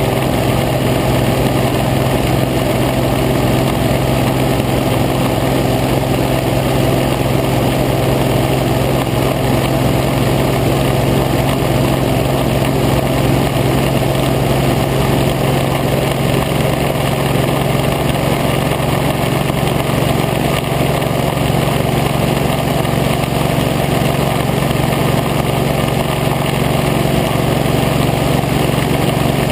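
Hovercraft engine running steadily at speed, a loud, even drone with a constant low hum and no change in pitch.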